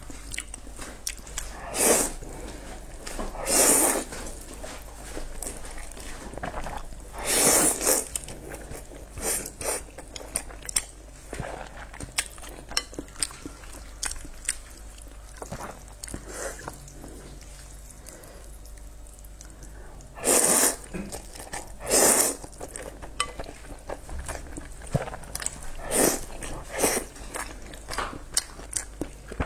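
Close-miked eating of pork noodles: steady chewing and biting with small mouth clicks, broken by about six louder bursts, each under a second long.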